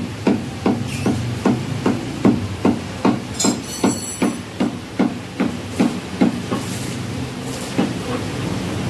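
Butcher's cleaver chopping mutton on a wooden block: a steady run of dull thuds, about two and a half strokes a second. The run stops about six seconds in, and one more chop follows near the end.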